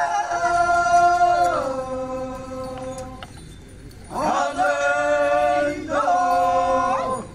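Phom Naga men chanting a traditional song in long held notes, each dropping in pitch partway through. The first call fades out after about three and a half seconds, and a new one starts about a second later.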